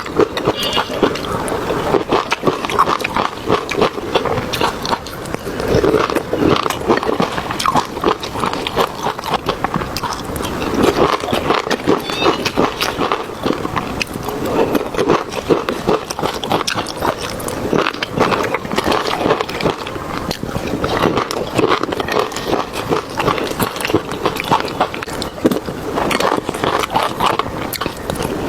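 Close-up eating sounds: chewing and biting, a steady run of many small wet clicks without a break.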